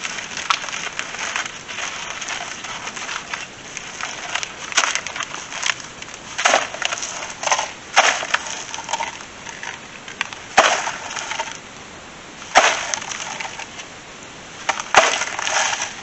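Ice inside a frozen plastic gallon jug being cut and chipped open by hand: crunching and scraping, then several sharp cracks as chunks of ice break away.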